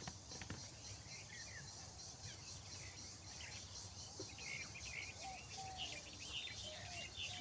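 Outdoor ambience: a steady high-pitched insect trill, with birds chirping on and off, the chirps more frequent in the second half.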